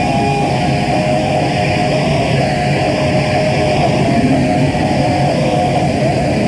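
Heavy metal band playing live, loud and dense: distorted electric guitar holding sustained, wavering notes over bass, with no singing.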